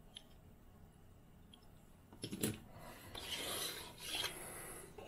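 Handling noise of small diecast toy trucks: a couple of light clicks about two seconds in, then some three seconds of rubbing and scraping as one model is set down among the others and the next is picked up.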